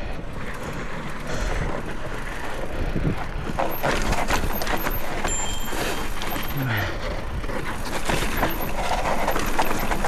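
Mountain bike riding down a dirt trail: tyres running over dirt and rock, with a steady stream of small knocks and rattles from the bike over the bumps.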